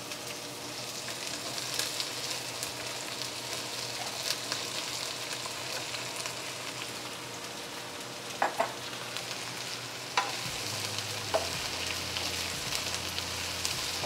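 Bell pepper, garlic, chili and eggplant strips sizzling in hot oil in a nonstick wok: a steady frying hiss with fine crackles, and a few short sharp sounds about two thirds of the way through. Near the end a wooden spatula stirs the pieces.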